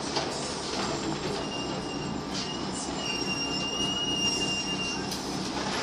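Cabin sound of a New Flyer D40LFR transit bus with its Cummins ISM diesel running. A high, steady brake squeal starts about a second and a half in, steps slightly higher halfway through and stops near the end, as the bus slows.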